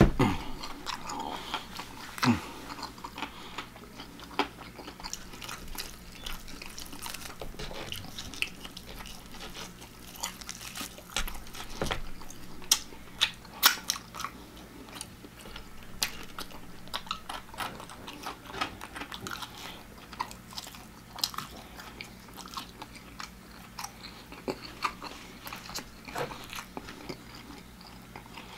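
A person chewing and biting crispy deep-fried food close to the microphone, with crunches and wet mouth clicks at irregular intervals.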